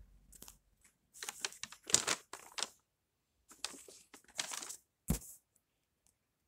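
Sheets of drawing paper rustling and crinkling as they are handled and turned, in two bursts, followed by a single sharp knock a little after five seconds in.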